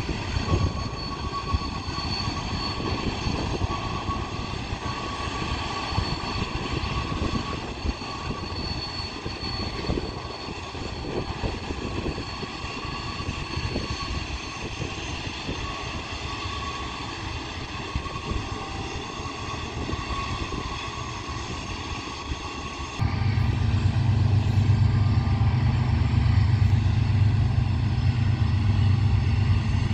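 Distant BNSF diesel locomotives of a freight train climbing the grade with helper units: a steady engine drone with faint steady high tones. About 23 seconds in, the sound cuts abruptly to a louder, deeper rumble.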